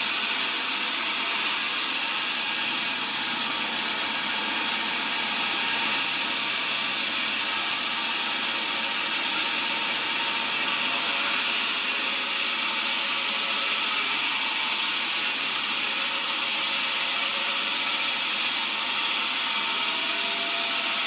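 Large sawmill band saw ripping a timber of cempaka wood lengthwise as it is pushed through on the feed table, giving a steady, even hiss of the blade cutting.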